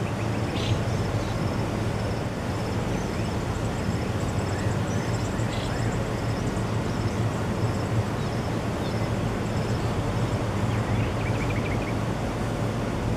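A steady low rushing noise, with faint high-pitched bird chirps repeating in short series through it.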